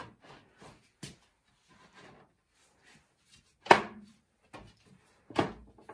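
Wooden crib rails and upright knocking and clicking as the mortise-and-tenon joints are pushed together. There are small clicks throughout, one loud wooden knock about two-thirds of the way through, and another near the end.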